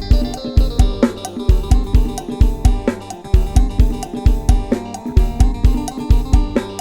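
Isan lam sing-style instrumental in the lai hae pattern: a sampled drum kit and bass keep a fast, steady beat with hi-hat and cymbal, under a plucked lead melody.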